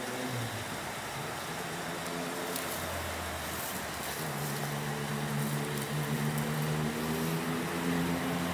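Engine running steadily: a low hum whose pitch shifts a few times, over a steady hiss.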